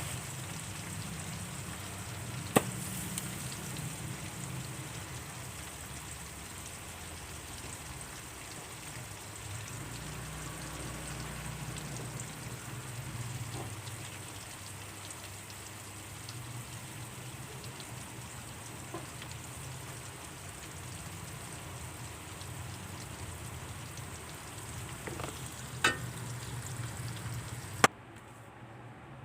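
Food frying in hot oil in a pan: steady sizzling, with a few sharp clicks of a utensil against the pan. The sizzle cuts off suddenly near the end.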